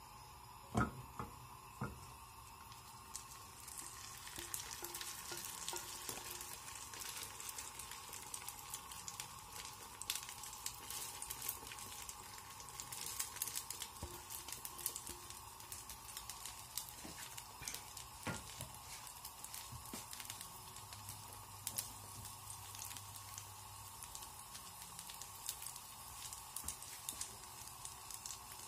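Grated potato batter frying in hot oil in a nonstick pan, a steady sizzle with many small crackles. Two utensil knocks on the pan about a second in, then the sizzle grows louder a few seconds later.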